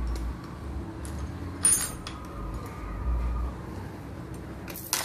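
Metal chain clinking and rattling as it is hooked and pulled around the iron ring of a tavil drum-skin stretching frame, with one sharp clink a little under two seconds in and another near the end.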